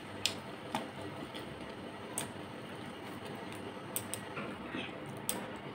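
Eating by hand from a metal plate: about six sharp, separate clicks as fingers mix rice and crunchy chanachur against the plate, over a steady low hiss.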